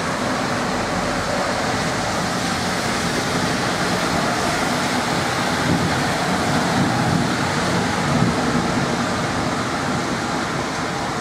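Heavy rain pouring down in a downpour, a dense, steady hiss with no letup.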